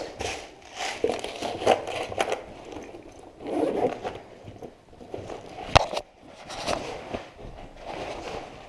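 Irregular rustling, scraping and crackling close to the microphone, with one sharp click a little before six seconds in.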